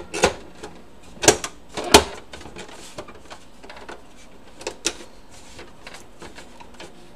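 Sharp plastic clicks and knocks as the outer casing of an Epson L120 inkjet printer is pressed and snapped into place by hand. Three loud ones come in the first two seconds, two more about five seconds in, with lighter ticks between.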